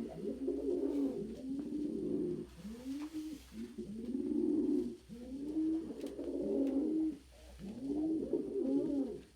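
Domestic pigeons cooing in a steady run of low coos, each rising and falling, about one a second. This is the cooing of a nesting hen warning another pigeon off her nest box.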